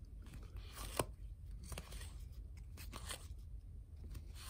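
Baseball trading cards being flipped off one stack onto another: a few short papery swishes as cards slide over each other, with a sharp click about a second in.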